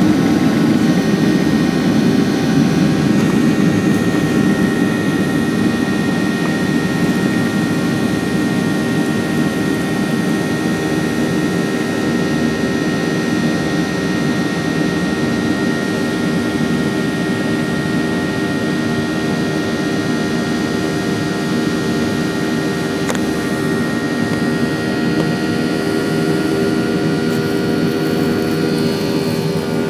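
Boeing 737-800's CFM56 jet engines running at high power, heard from inside the cabin: a steady rumble with several steady whining tones over it, easing slightly in the first few seconds and then holding level.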